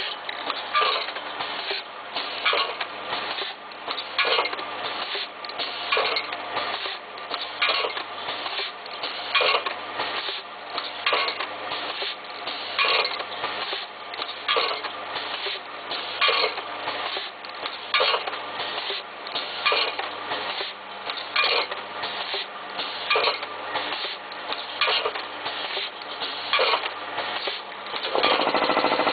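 Triangle-pouch packing machine running, its sealing jaws and linkages clattering in a steady rhythm of repeated sharp clicks as they seal and cut triangular packs from the film tube. Near the end a louder, steady buzzing rattle sets in.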